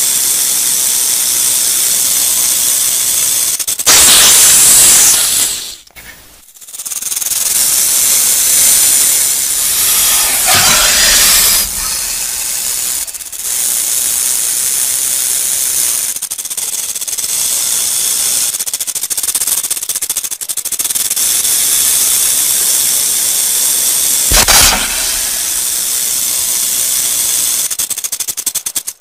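Rattlesnake shaking its tail rattle: a continuous dry, hissing buzz that swells louder twice and drops out briefly about six seconds in.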